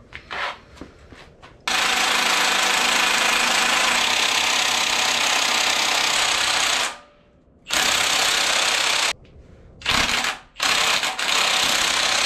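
Power tool, most likely an impact wrench, run in several loud bursts on the 5.3 LS engine's crankshaft pulley bolt: one of about five seconds, then shorter bursts of about a second, a very brief one, and one of about two seconds.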